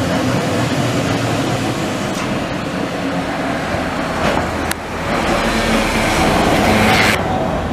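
Vintage heritage tramcar running on street rails, a steady rail rumble with a single sharp click about halfway through. The noise grows louder towards the end, then drops away suddenly just before the end.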